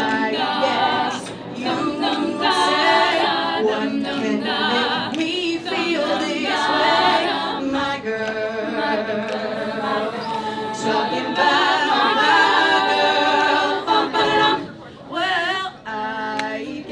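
A girls' a cappella group singing, a lead voice on a microphone over several backing voices in harmony, with no instruments.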